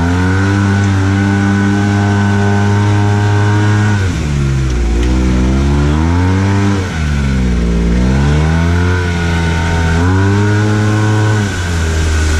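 Arctic Cat Wildcat Trail 700 side-by-side's single-cylinder engine heard from the cab, held at high revs for a few seconds, then dropping and climbing again twice as the throttle is lifted and reapplied. Near the end the engine drops off as the machine splashes through a water hole.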